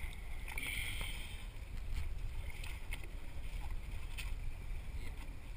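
Steady low rumble of wind and water around a small fishing boat at sea. A few short splashes and knocks come as a hooked fish is pulled from the water and lifted aboard on the line.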